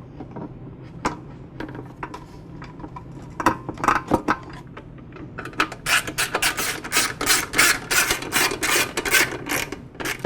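Handling noise as a plastic mower fuel tank and its rubber fuel line are worked into place on the engine: scattered scrapes and knocks, then a quick run of rapid clicks in the second half.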